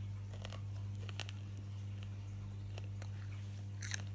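A child chewing a fresh chilli, a scatter of faint short wet mouth clicks with a sharper one near the end, over a steady low electrical hum.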